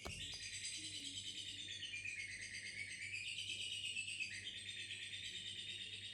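Lovebird ngekek: a long, unbroken, rapid high chattering trill that wavers up and down in pitch, starting abruptly with a click.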